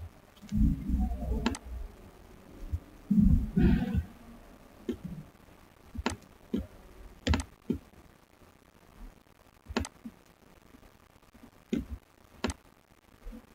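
Scattered computer mouse clicks, sharp and irregular, in a small room. Two louder low, muffled thumps come in the first four seconds.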